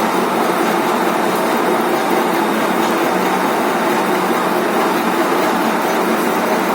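Lathe with a milling attachment running steadily while milling a triple-start thread on a shaft: an even, unbroken machine noise with a faint constant hum.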